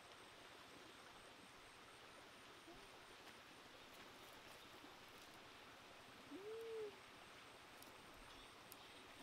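Faint, steady outdoor hiss of a shallow stream, near silence, broken about six seconds in by a single short hooting call from a bird, rising then falling in pitch. A fainter, briefer call comes at about three seconds.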